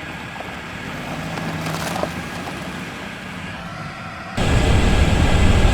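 Car driving: a quieter stretch of even hiss with a click about two seconds in, then, a little over four seconds in, loud low engine and road rumble cuts in suddenly.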